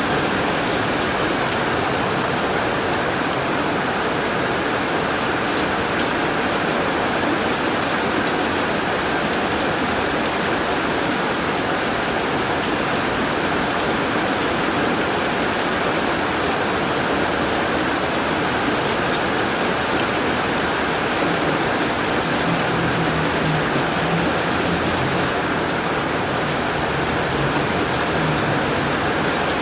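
Heavy rain drumming steadily on a tin roof, a dense even patter with fine individual drop ticks.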